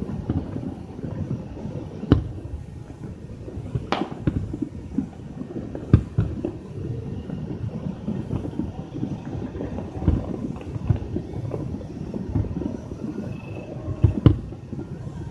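Low, uneven rumbling noise on a phone microphone, broken by three sharp knocks about two seconds apart and another near the end.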